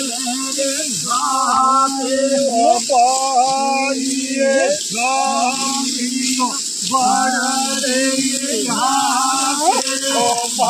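A man singing a melodic song in drawn-out, wavering phrases over a steady low drone.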